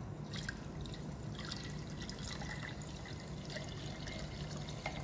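Water poured in a steady trickle from a glass beaker down a glass funnel into a glass beaker.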